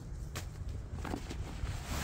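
Wind rumbling on the microphone, with a few brief crunches.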